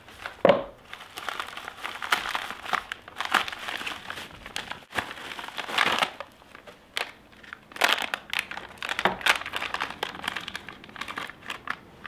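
Bubble wrap and a plastic bag crinkling and rustling in the hands as a Raspberry Pi board is unwrapped, in irregular handfuls with short pauses. A single sharp knock comes about half a second in.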